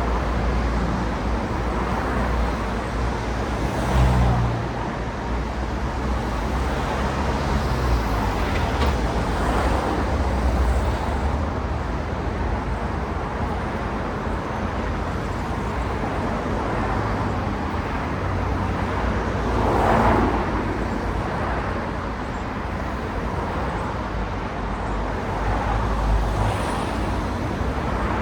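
City road traffic: a steady rumble of cars with tyre noise, and individual cars passing closer and louder about 4 seconds and 20 seconds in.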